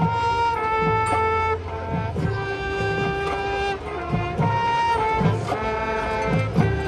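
High school marching band playing a slow melody in long held notes that step from pitch to pitch, with drum hits underneath.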